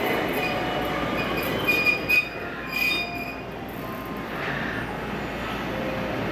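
683/681 series limited express electric train rolling slowly to a stop, with a steady rumble and a few high-pitched brake squeals about two to three seconds in.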